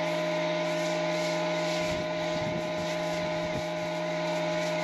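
Kärcher K5 electric pressure washer running steadily under load, a constant hum from its motor and pump, with the hiss of the foam cannon spraying soap foam.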